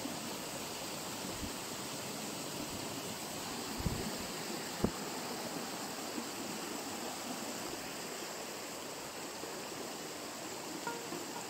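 Steady rushing of stream water, with two short thumps about four and five seconds in.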